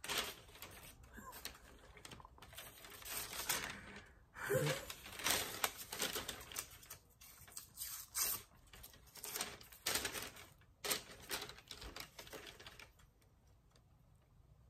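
Crinkling and rustling of a clear plastic bag being handled, in irregular bursts that stop about two seconds before the end.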